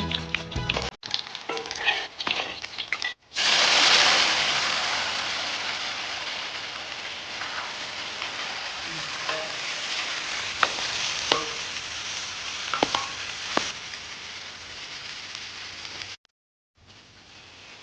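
Food sizzling loudly in hot oil. The sizzle starts suddenly about three seconds in and slowly dies down over the following seconds, with scattered pops and crackles.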